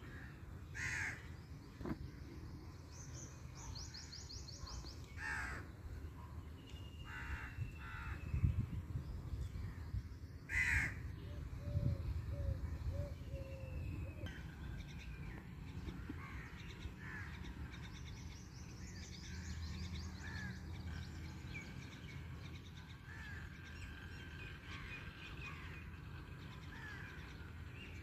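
Crows cawing, about four or five harsh calls in the first ten seconds or so, with smaller birds chirping and twittering throughout, busiest in the second half, over a low rumble.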